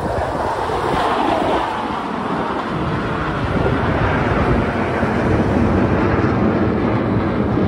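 Wind buffeting the microphone over breaking surf: a steady, loud rushing noise.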